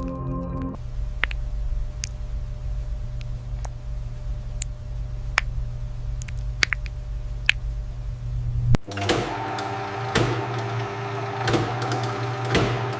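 Factory machinery: a steady low hum with scattered clicks, then about nine seconds in a sudden switch to busy, rattling, clicking machine noise.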